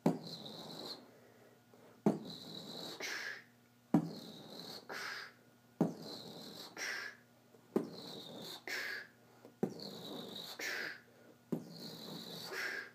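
Rhythmic beatbox-style mouth noises: a sharp click followed by hissing and breathy bursts, repeating in an even cycle about every two seconds.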